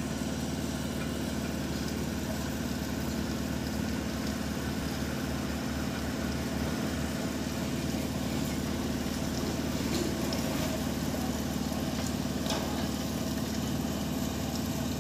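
Truck-mounted roll-forming machine for self-supporting arch roof sheets running with a steady engine drone as it forms a steel sheet. There are a couple of faint clicks about two-thirds of the way through.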